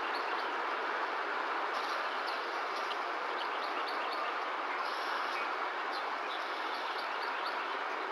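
Steady, even hiss with short high chirps scattered through it, some of them gliding slightly downward.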